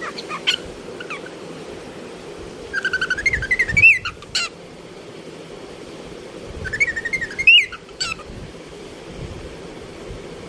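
Cockatiel chirping and warbling: a few short chirps at the start, then two warbling phrases that climb in pitch, about four seconds apart.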